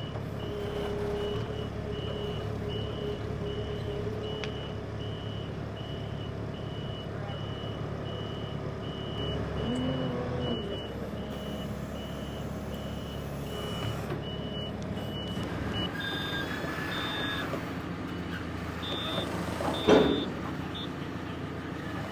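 Backup alarm on heavy lifting equipment beeping steadily, about two to three times a second, over an engine running. Later a higher-pitched beep sounds on and off, and a single loud metallic knock comes about 20 seconds in.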